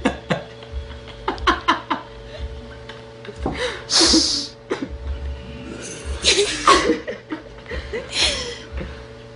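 Several short outbursts of giggling laughter, one after another, over a faint steady hum.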